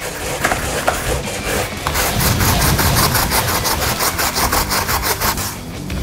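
Raw potato being grated by hand on a plastic grater: quick, rhythmic rasping strokes, about four a second, most even from about two seconds in until just before the end. The potato is being grated for potato pancake batter.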